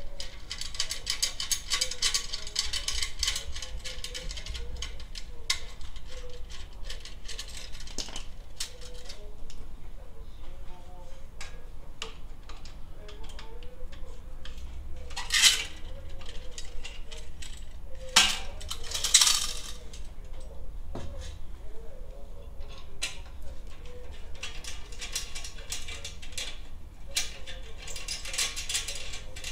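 Hand ratchet wrench clicking in quick runs as the muffler mounting bolts are loosened, with a few louder metal clanks of tool on chrome muffler and brackets about midway.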